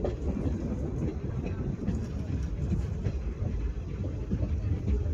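Passenger train coach of the Tebhaga Express running along the track, heard from the coach window: a steady low rumble of wheels on rail, with faint scattered clicks and rattles.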